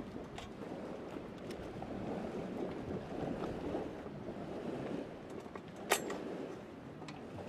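Small metal clicks and taps from handling a Feuerhand 276 hurricane lantern's globe lever and wick knob, with the sharpest click about six seconds in, over a steady low rushing background noise.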